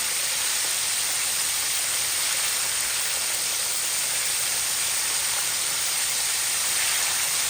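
Chicken wings deep-frying in hot oil in a pan: a steady, even sizzle.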